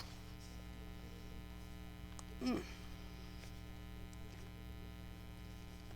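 Steady electrical mains hum with a few faint ticks, and one short vocal sound, a murmur, about two and a half seconds in.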